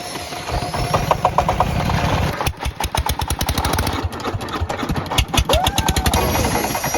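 Small single-cylinder diesel engine running just after a hand-crank start, firing in a rapid, even knocking beat.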